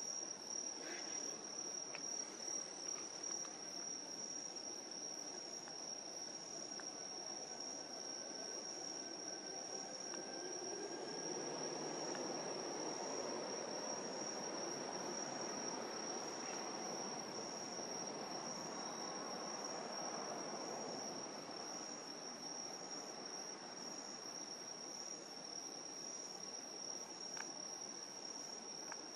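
Crickets trilling steadily on one high pitch through the night air. A broad low rumble swells and fades in the middle.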